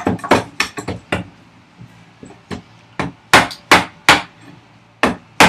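A large timber framing chisel is being struck to chop waste wood out of a housing dado. A quick run of light taps is followed by a short pause, then a series of harder, evenly spaced blows.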